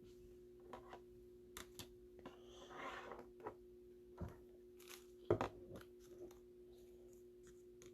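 Faint handling of trading cards and their plastic sleeves and holders: a soft rustle about three seconds in and a few small clicks, the sharpest a little past the middle, over a low steady hum.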